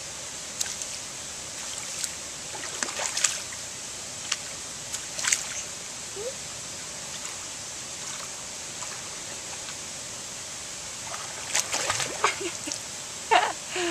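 A toddler's hands splashing and slapping in shallow creek water. The splashes come scattered at first, then in a busier run near the end as he crawls forward, over a steady rush of running creek water.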